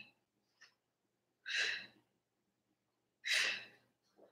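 A woman's sharp, hissy breaths out, one with each oblique crunch, about every second and a half to two seconds, with quiet between them.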